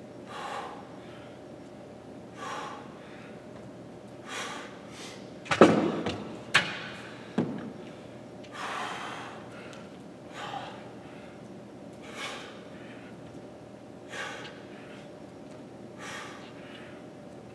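A man's heavy breathing during split-squat reps, a sharp breath about every two seconds. About halfway through come three knocks, the first the loudest.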